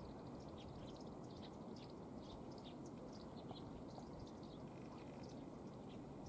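Eurasian tree sparrows chirping: many short high chirps at an irregular pace, over a steady low background hiss.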